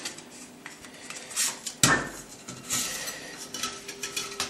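Metal clinks and knocks of an adjustable cake ring being handled and set to size, with the sharpest knock about two seconds in.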